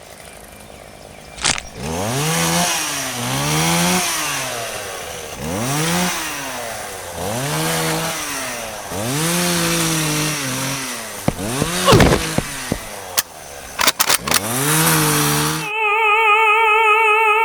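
A chainsaw revving up and easing off again and again, each rev rising and falling in pitch, with a few sharp clicks among them. Near the end a steady, wavering electronic tone takes over.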